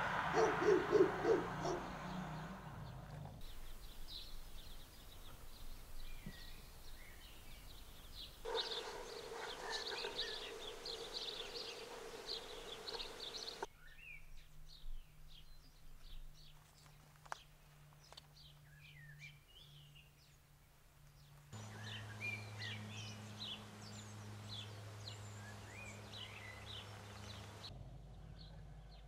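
Small birds chirping and singing over faint outdoor background noise, with the background changing abruptly every few seconds. A low steady hum lies under some stretches.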